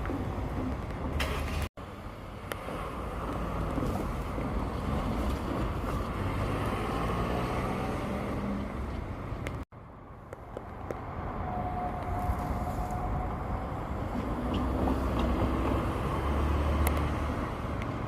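Road traffic: motor vehicles running with a steady engine rumble and tyre noise. The sound cuts out abruptly twice, about two seconds in and near the middle.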